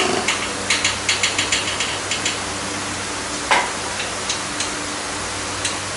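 A quick run of light metallic clicks, about ten in two seconds, then a single sharper knock about three and a half seconds in, followed by a few scattered clicks: hand work with metal tools and parts.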